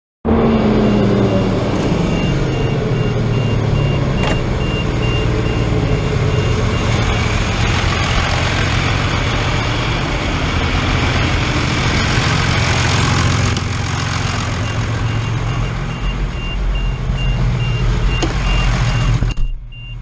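John Deere tractor's diesel engine running steadily with a rushing machine noise over it and a rapid high-pitched beeping through much of it. The engine pitch falls in the first couple of seconds, and the noise drops away abruptly near the end.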